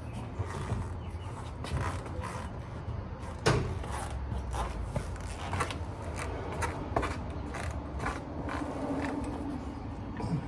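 Scattered metallic clicks, knocks and creaks from a transmission being shifted by hand on a floor jack under a car, with one louder knock about three and a half seconds in.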